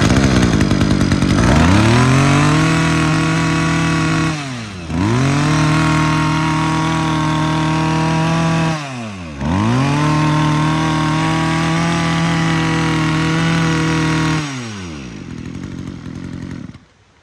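Kawasaki TZ27 27cc two-stroke brush cutter engine revved to full throttle three times, dropping briefly between each hold, then falling back to idle and cutting off near the end.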